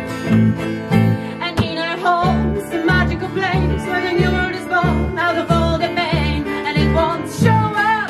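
A small band playing a song: strummed acoustic guitar, an electric bass guitar keeping a steady pulse of about two notes a second, and keyboard. From about a second and a half in, a woman sings a long, wavering melodic line over it with no clear words.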